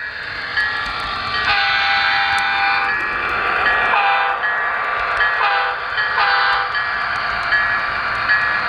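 Train horn sounding three blasts, the first long and the next two shorter, the pitch sagging as each lets go. Under it is steady running noise and a short high ding repeating about twice a second.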